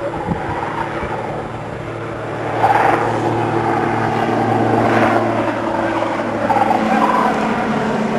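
Ultralight airplane engine droning steadily. Over it, a loudspeaker broadcasts recorded whooping crane calls, which ring out loudly a few times, first about a third of the way in.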